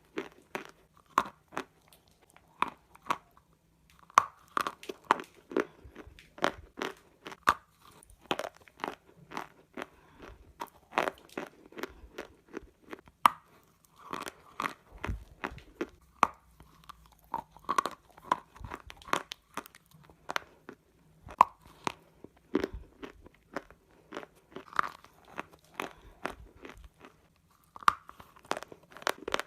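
Pieces of baked clay pot being bitten and chewed: dense, irregular sharp crunches, broken by short pauses between bites.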